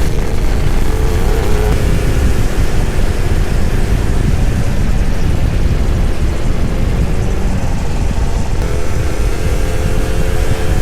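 Two-stroke motorcycle engine running at speed on the road, with heavy wind rumble on the microphone. The engine's pitch climbs a little near the end.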